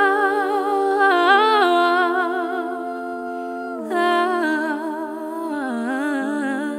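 Layered a cappella female voices singing wordless harmony: low notes are held under a lead voice that sings runs above them, and the chord changes twice before fading near the end.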